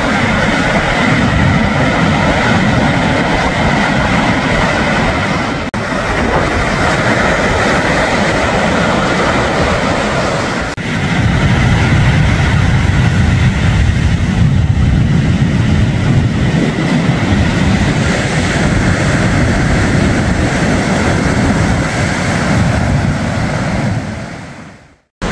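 Sea waves breaking and washing up a sandy beach: a steady rushing noise with a heavy low rumble. It is broken by two brief cuts, about six and eleven seconds in, and fades out near the end.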